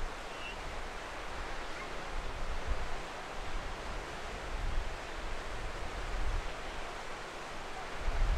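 Small waves breaking and washing up a sandy beach, a steady surf hiss, with low wind buffeting on the microphone that strengthens near the end.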